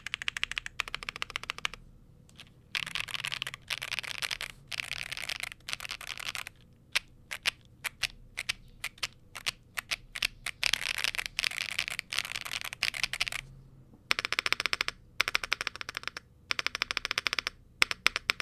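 Typing on a Yunzii AL75 aluminium keyboard: rapid runs of key clacks broken by short pauses. The keyboard has factory-lubed Yunzii Cocoa Cream V2 linear switches and doubleshot PBT keycaps on a gasket-mounted polycarbonate plate, with only case and plate foam fitted (no PE foam or PET switch film). It sounds clean and clacky.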